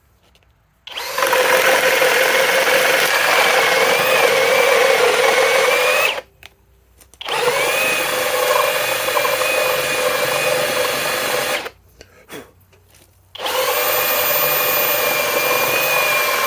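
Flex 24-volt cordless hammer drill in turbo mode at speed 1, driving an almost 2-inch bit under load. It runs in three steady spells of a few seconds each, with short stops between, at an even pitch with a high whine.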